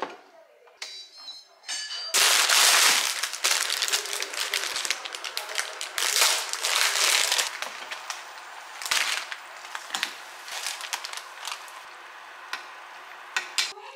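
Plastic packet of Teumsae Ramyeon instant stir-fry noodles crinkling while the dry noodle block inside is cracked and broken in half, a dense crackle of small snaps that comes in two loud spells. A few short high beeps sound near the start.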